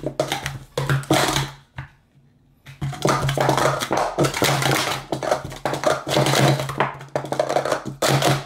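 Plastic sport-stacking cups clattering in rapid runs of clacks as they are stacked up and down at speed in a timed cycle. There is a pause of about a second, roughly two seconds in.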